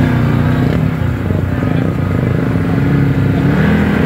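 ATV engine running while the quad is ridden, its pitch rising and falling with the throttle.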